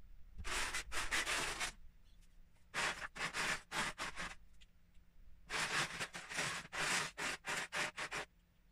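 Hands rummaging through loose Lego bricks in a plastic storage tub, the small plastic pieces rattling and scraping against each other in three bouts of a second or more each.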